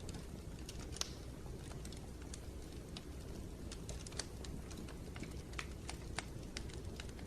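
Wood fire burning in a fireplace, with irregular sharp crackles and pops, a louder pop about a second in, over a low steady rumble.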